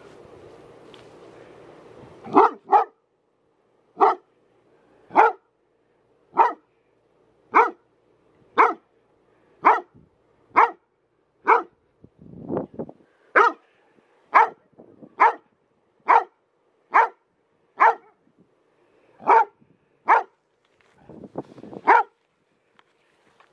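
A dog barking at a light bulb lying in the grass: about twenty single barks, roughly one a second, starting a couple of seconds in and keeping a steady pace, with a couple of lower, rougher barks among them.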